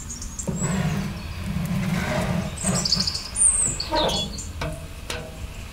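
A metal baking pan scraping across the steel floor of a wood-burning stove's oven, then the stove's sheet-metal oven door clanking shut about four seconds in, with a lighter knock a second later.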